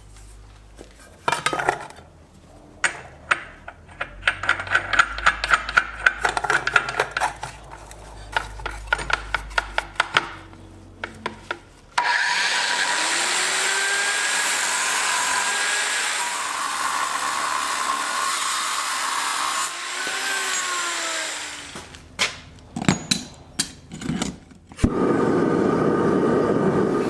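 Metalworking in a forge: a series of sharp, ringing hammer strikes on steel, then a power tool running steadily for about nine seconds with its pitch sagging and rising. A few more strikes follow, and a steady noise starts near the end.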